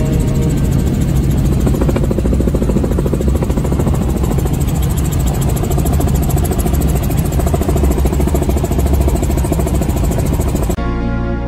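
Helicopter in flight: steady rotor and engine noise with a rapid, even pulsing. Music takes over abruptly near the end.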